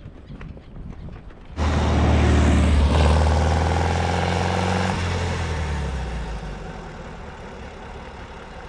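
Volkswagen Beetle's air-cooled flat-four engine as the car drives past. It starts suddenly about a second and a half in, is loudest soon after, and fades away toward the end.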